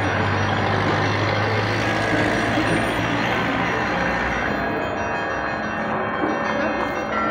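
City street traffic with a heavy vehicle running past; its low hum and rushing noise fade about four and a half seconds in. Steady ringing tones of church bells carry on beneath the traffic.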